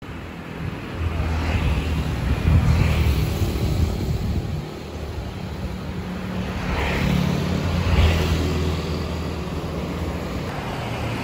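Street traffic: a low rumble of passing vehicles that swells and fades, loudest about two and a half seconds in and again around eight seconds.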